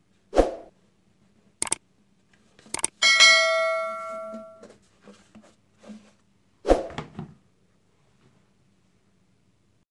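Two short clicks, then a bell-like ding that rings out and fades over about a second and a half: the click-and-bell sound effect of a subscribe-button animation. Before and after it come sharp knocks of a hard plastic coolant reservoir being handled and then set down in a plastic basin.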